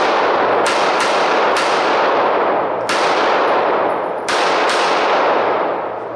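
Six pistol shots, each trailing off into a long echo off the range walls: three in quick succession in the first second and a half, a single shot about three seconds in, and a quick pair near the end.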